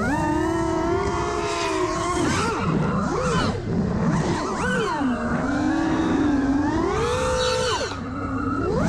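5-inch FPV racing quadcopter's four brushless motors (1960KV on 6S) and Gemfan Sbang propellers whining, the pitch sweeping up and down sharply with each throttle punch and chop, over a haze of propeller wash, heard through the onboard action camera. The pitch climbs steeply at the start, drops twice around the two- to four-second mark, holds lower in the middle, then rises again and dips just before the end.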